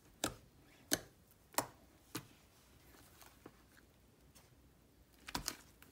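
Sticky glue-and-detergent slime being pressed and pulled by fingers: sharp little wet pops and clicks about every two thirds of a second for the first two seconds or so, fainter ones after, and a quick cluster of pops near the end.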